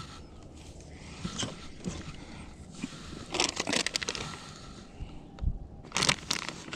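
Plastic soft-bait bag crinkling in the hands, in short rustling bursts, the loudest about three and a half seconds in and again about six seconds in.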